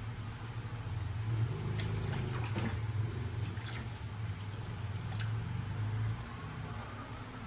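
Water running from a tap into a sink or basin, with splashing and a few clicks of handling; the flow starts about a second in and stops abruptly shortly after six seconds.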